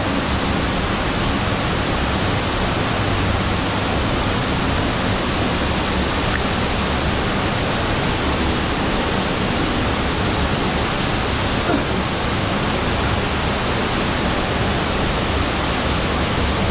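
Water of an underground waterfall in a cave stream, rushing loudly and steadily.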